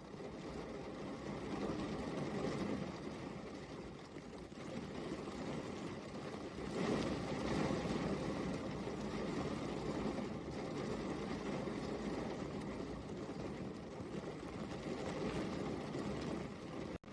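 Steady rain falling, a dense even hiss that swells louder about two seconds in and again about seven seconds in.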